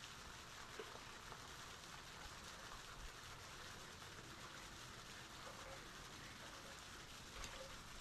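Faint, steady splashing and pattering of a thin waterfall stream falling onto rock, with a few faint knocks, the most noticeable near the end.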